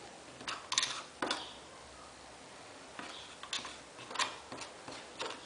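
Hand tools clicking and scraping against a dental flask while the splint is being flasked: a string of short, sharp clicks and scrapes, the loudest about a second in and around four seconds in.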